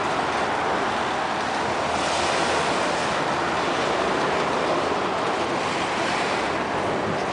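Freight train of autorack cars rolling past close by: a steady, even noise of steel wheels running on the rails.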